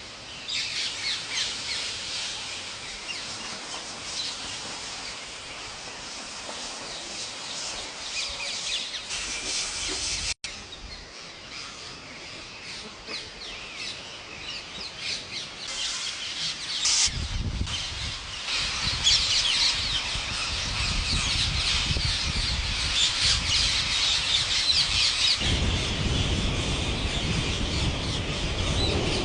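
Many birds chirping and calling together in a dense, continuous chatter. An abrupt cut comes about ten seconds in, and a low rumble joins the calls from a little past halfway.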